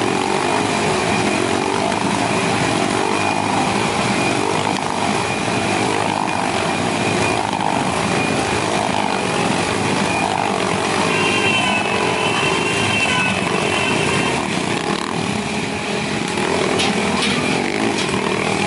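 Several motorcycle engines running hard and revving as the bikes circle inside a steel-mesh globe of death, the engine note rising and falling continuously.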